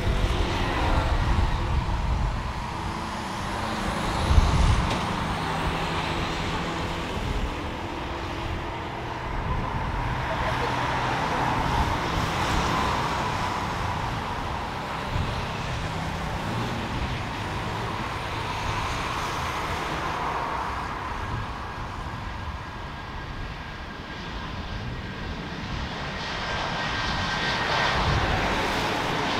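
Airbus A321neo's Pratt & Whitney PW1100G geared turbofans running at takeoff thrust as the airliner rolls down the runway, growing louder near the end as it comes closer. A brief low thump sounds about four seconds in.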